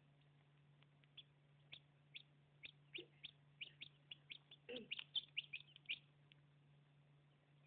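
Hatching chicks peeping from inside pipped eggs: a run of short, high cheeps that come thicker and louder about five seconds in, over a faint steady low hum.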